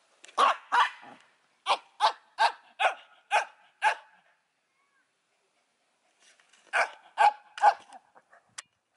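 Small white shaggy dog barking in play: two barks, then a run of six, then after a pause of about two seconds three more.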